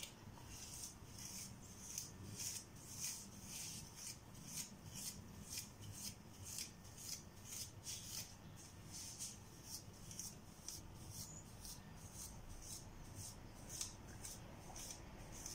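A comb drawn again and again through dense, tightly coiled natural afro hair during detangling: a faint scratchy rasp, about two to three strokes a second.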